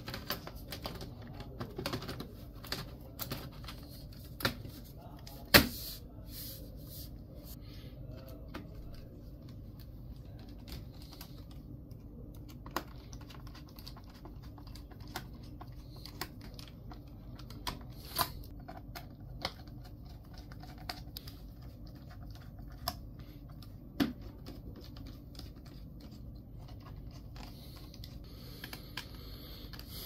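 Scattered small clicks and taps from hands working on a Dell Precision 7760 laptop, at irregular intervals, with a sharper knock about five and a half seconds in and another around the 24-second mark, over a steady low hum.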